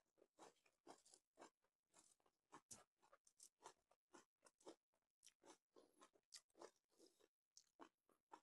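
Faint, close-up chewing and crunching of food in the mouth, with short crisp crunches about three times a second.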